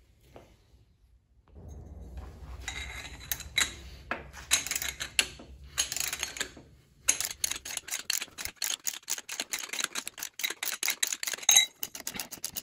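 Hand tools on a crankshaft pulley bolt: metal scraping and clanks as a pulley holding tool and breaker bar work the bolt loose, then, about halfway through, a socket ratchet clicking rapidly and steadily as the bolt is turned out.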